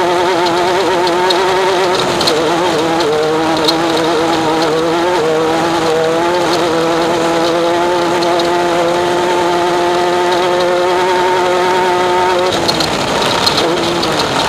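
Off-road race vehicle's engine running hard under load, its pitch wavering and dipping with the throttle, then held steady for several seconds before dropping off near the end. Wind and terrain noise run underneath.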